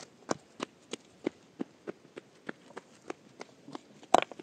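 Quick footsteps on stony dirt ground, about three steps a second, then a loud clatter of loose stones near the end.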